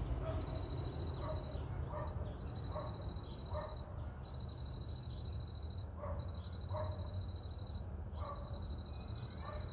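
A dog barking in scattered short barks, a few seconds apart, over a high insect trill that repeats in phrases of about a second and a half with short breaks. A steady low rumble lies underneath.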